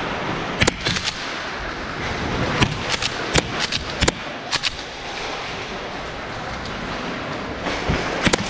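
Airsoft guns firing in an indoor arena: scattered sharp cracks, several in the first half and a couple more near the end, over a steady background hiss.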